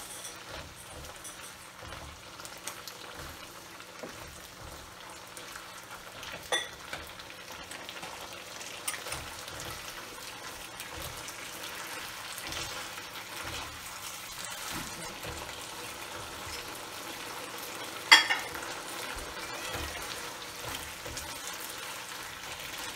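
Beef and green beans frying in a nonstick wok, stirred with a spatula, while the sauce is thickened with a drizzled cornstarch-and-water slurry. Two sharp knocks cut through the steady sizzle, the louder one about eighteen seconds in.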